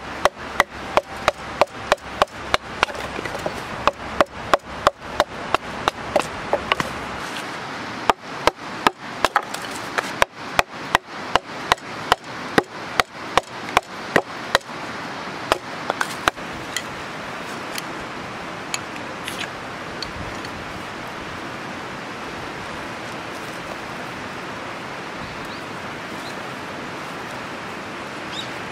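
Wood-on-wood knocks, about two a second, as a knife is batoned down through a piece of firewood with a wooden baton, pausing briefly near the middle. After about sixteen seconds the knocking stops, leaving a steady hiss with occasional faint crackles.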